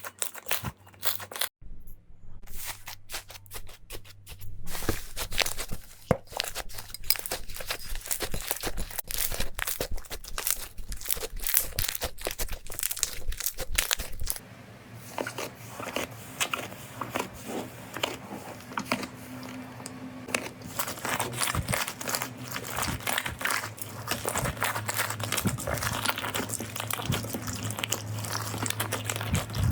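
Slime being squeezed, stretched and pressed by hand, giving a dense run of crackling, popping clicks. About halfway through the sound changes to another take, with a faint steady hum underneath.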